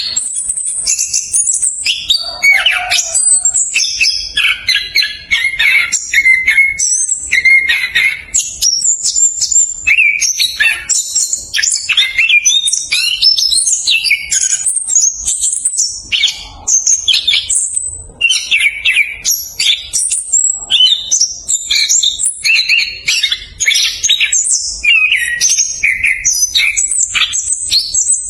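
Orange-headed thrush (anis kembang) singing a fast, unbroken rolling song of dense, varied high whistles, chirps and trills with hardly a pause.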